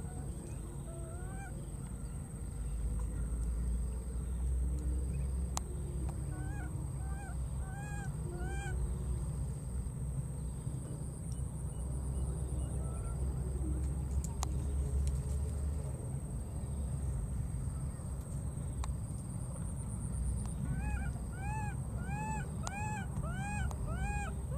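Baby monkey giving short, high calls, each rising then falling in pitch: a few scattered ones, a run of four about seven seconds in, then a quick series of about seven near the end. These are an infant's calls for a missing companion. A steady low rumble runs underneath.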